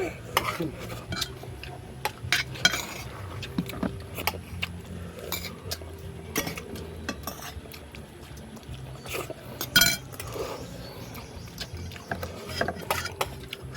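Utensils clinking and tapping against plates and bowls while eating: scattered irregular clinks, the sharpest one about ten seconds in.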